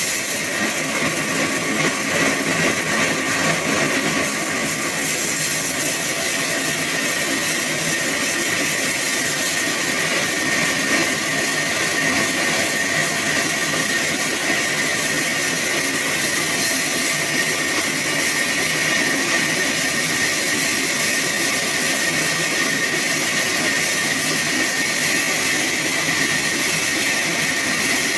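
Sawmill saw running steadily, a continuous loud mechanical noise with a steady high whine that strengthens a few seconds in.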